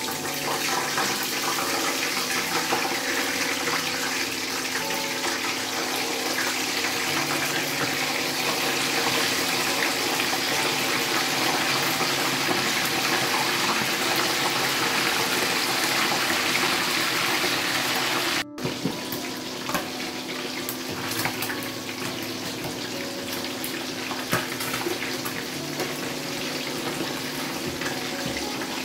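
Boiled chicken pieces deep-frying in hot oil in an enamel pot: a steady, loud sizzle. After a brief dropout about 18 seconds in, the sizzle carries more sharp crackling and popping.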